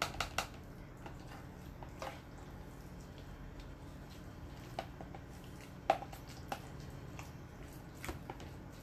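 Hand potato masher pressing cooked potatoes in a plastic microwave dish: three quick knocks against the dish at the start, then a few scattered soft taps and squishes.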